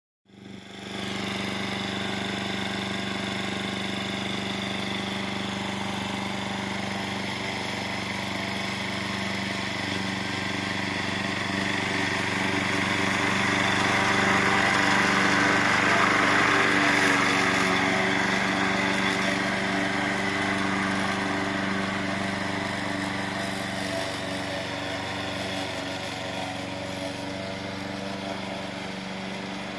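A remote-controlled walk-behind lawn mower's small petrol engine running steadily at constant speed as the mower drives itself across the grass. It grows louder about halfway through as it passes close, then fades as it moves away.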